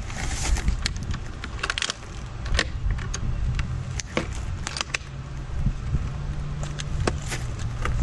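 Irregular clicks, knocks and light metallic rattles from handling a Jetson Haze folding e-bike's frame and hinge latch, over a low background rumble. A low steady hum joins in for a couple of seconds about five seconds in.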